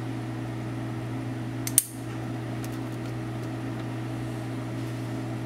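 Steady low room hum, with one short sharp click a little under two seconds in as an MTP fiber-optic connector is pushed home into its mating adapter.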